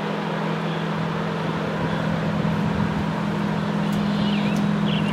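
Low, steady diesel locomotive drone, growing slowly louder as a train approaches the station. A few short high chirps come near the end.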